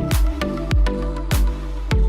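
Electronic background music with a steady kick-drum beat, roughly one and a half beats a second.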